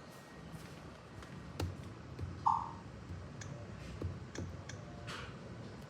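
A single short electronic beep about two and a half seconds in, among a few faint clicks and taps over a low background hum.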